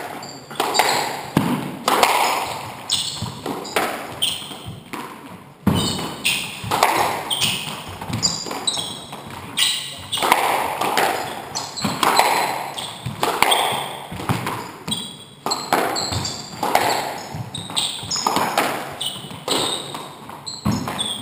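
Squash rally: the ball is struck by the rackets and smacks off the court walls about once a second in an uneven rhythm, each hit echoing in the enclosed court. Short high squeaks of court shoes on the wooden floor fall between the hits.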